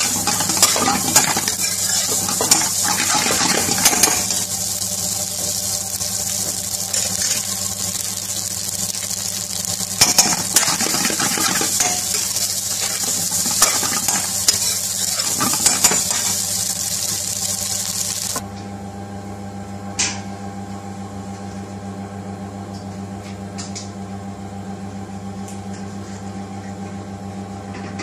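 Rice sizzling in a hot pan while a metal spoon stirs and scrapes it, clicking against the pan. About 18 seconds in the sizzling cuts off suddenly, leaving a steady low hum with a single knock.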